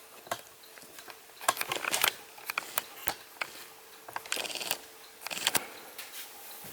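Scattered light clicks, taps and rustles of a plastic humidifier and its packaging being handled, in a few clusters.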